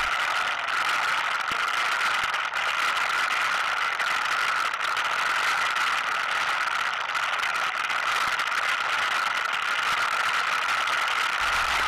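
ATV riding at a steady pace along a dirt road: its engine running evenly, mixed with wind noise, as picked up by a camera mounted on the machine.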